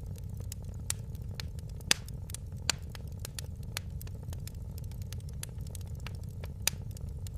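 Wood fire in a fireplace crackling: irregular small snaps over a steady low rumble, with a few sharper pops, the loudest about two seconds in.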